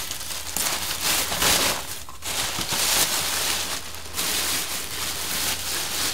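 Black plastic bin bag rustling and crinkling as it is handled and foam wings are drawn out of it, with short lulls about two seconds in and again around four seconds in.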